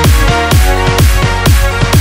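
Electronic dance music with a steady, evenly repeating kick drum under sustained synth chords.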